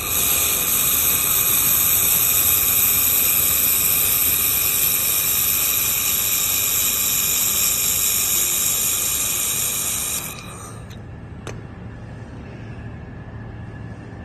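Handheld fiber laser welder firing, a loud steady hiss of shielding gas and weld spatter with high ringing tones, cutting off abruptly about ten seconds in. A single click follows, then a quieter low machine hum.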